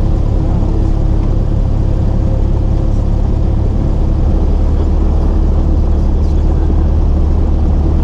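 Cessna 172's piston engine and propeller running steadily, heard from inside the cabin: a constant low drone with a few steady hum tones over it.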